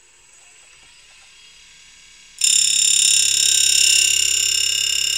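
Tool grinder's spinning wheel running quietly, then about two and a half seconds in it bites into the end of a 5/8-inch two-flute end mill, setting off a loud, steady, high-pitched ringing whine with a fast pulse as the primary cutting angle is ground.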